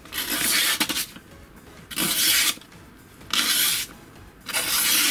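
A freshly sharpened kitchen knife slicing through a sheet of paper in four separate strokes, each a short papery rasp, about a second apart.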